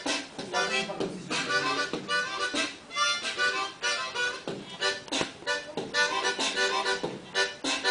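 Beatboxing into cupped hands: quick percussive clicks and pops in a steady rhythm, mixed with short pitched notes that keep changing pitch.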